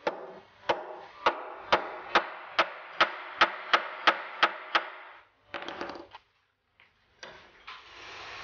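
Ball-peen hammer tapping a metal T-nut into a hole in a particleboard (HMR) panel: about a dozen sharp taps that come a little quicker towards the end, then a short rattle. Near the end, soft knocks and rustling handling noise as a caster wheel is set on the board.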